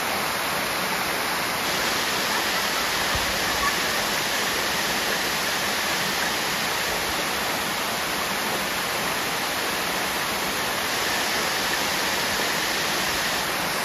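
Waterfall rushing, a steady even roar of falling water.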